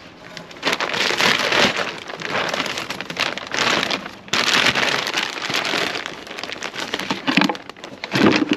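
Dry potting compost poured and scooped into cut plastic bottles: a dense, gritty patter like rain, in long stretches with a short break about four seconds in.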